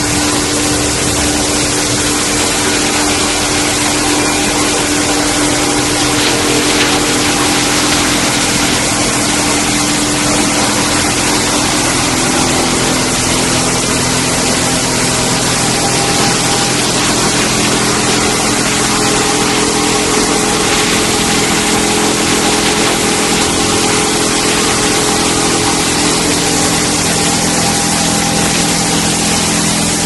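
HDPE pipe shredding and washing line running: a loud, steady hum of electric motors and conveyors, with a few constant tones over a continuous hiss.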